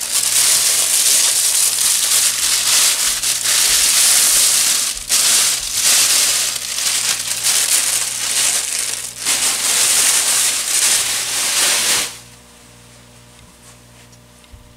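Clear plastic wrapper crinkling loudly as it is pulled off a bookshelf speaker, in uneven rustling spurts with short pauses, stopping abruptly about twelve seconds in.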